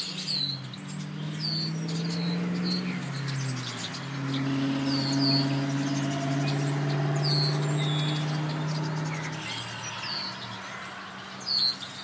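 Birds in a reed marsh giving short, sharp chirping calls, about one a second. Under them a steady low motor hum grows louder in the middle and fades out about nine and a half seconds in.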